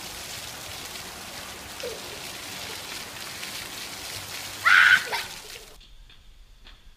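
Splash-pad fountain jets spraying steadily onto paving as children play in them. About four and a half seconds in, a child lets out a short, loud, high-pitched squeal. The water hiss cuts off suddenly near the end, leaving faint outdoor background.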